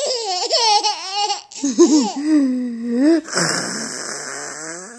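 A baby laughing in high, wavering bursts, along with an adult's silly voice noises: a lower voice sliding up and down, then a long hissing, raspy noise that fades out near the end.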